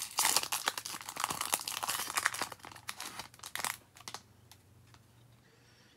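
Foil wrapper of a Topps baseball card pack being torn open and crinkled by hand, a dense crackle that stops about four seconds in.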